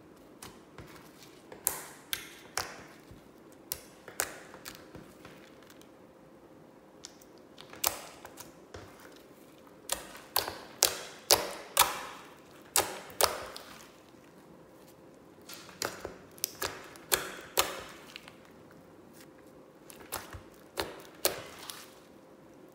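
Slime being pressed and worked by hand, giving sharp popping and clicking sounds in irregular clusters, the most rapid run in the middle.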